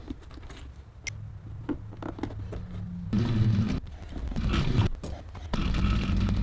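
Small clicks of metal binder clips being snapped onto a leather bag's gusset. About three seconds in, an industrial cylinder-arm leather sewing machine starts stitching the leather, running in short spurts with brief pauses.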